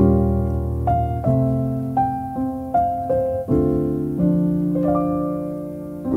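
Background solo piano music, with notes and chords struck every half-second or so and left to fade.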